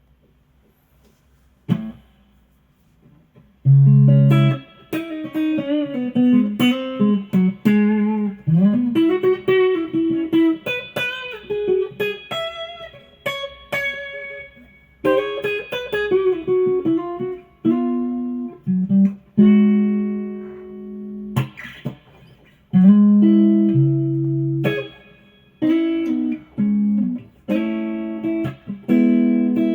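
Fender Stratocaster with a Custom Shop '54 single-coil pickup, played through a Fender Blues Junior amp. After one plucked note about two seconds in, a lead line starts about four seconds in: single notes with string bends and some held notes.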